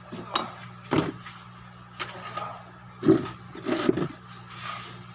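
Scattered clicks and light knocks of small tools and parts being handled on a repair bench, about half a dozen, the loudest a little after three seconds in, over a steady low hum.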